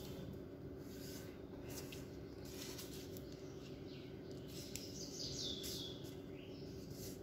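Square of origami paper being folded and creased by hand on a table: faint rustling and crinkling strokes over a steady low background hum. A few short, high, falling chirps come about five seconds in.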